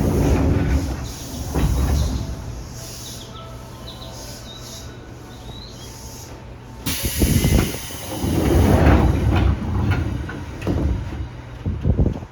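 Pneumatic doors of a Seibu New 2000 series commuter train working at a station stop. A sharp burst of air hiss comes about seven seconds in, then heavy rumbling and knocking as the doors move. A steady low hum runs underneath.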